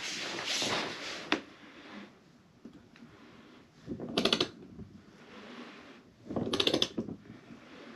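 Socket ratchet clicking in two short bursts, about four and six and a half seconds in, as the handle is swung back while tightening the fuel pump's locking ring on the fuel tank. Before that come a scraping rustle of the tool being handled and a single click.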